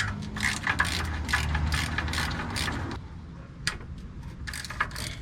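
Hand ratchet with a 15 mm socket clicking in quick runs of strokes as it backs out a long bolt on the transmission bell housing cover, with a short pause past halfway before the clicking resumes.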